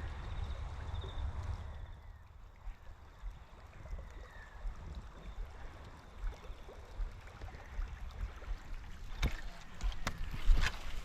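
Outdoor creekside sound: a low rumble, strongest for the first two seconds, over faint running water, then a few sharp clicks or knocks near the end.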